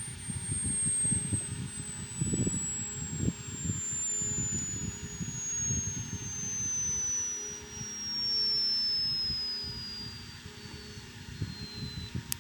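Hearing-test sine tone sweeping slowly and steadily down in pitch from very high to high, stopping just before the end. A low, uneven rumble runs underneath.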